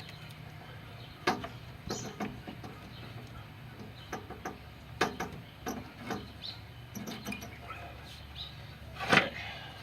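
Scattered light clicks and taps as the ignition coil and its wires are handled, a handful over several seconds, over a low steady hum.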